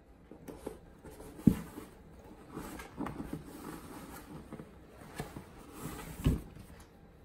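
A cardboard box being slapped and brushed by a baby's hands and a cat, with soft scraping and rustling on the cardboard and two sharp knocks, a louder one about one and a half seconds in and another near the end.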